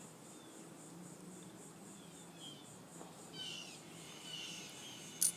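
Quiet handling of a small 1/4-inch drive ratchet head being reassembled, with one sharp small metal click near the end. Faint short chirps are heard about midway.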